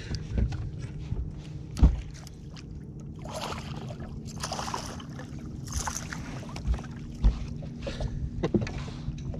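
A hooked smallmouth bass splashing and thrashing at the surface beside a boat as it is played in and netted, in several bursts of splashing around the middle. There are thumps on the boat deck, the loudest about two seconds in, over a steady low hum.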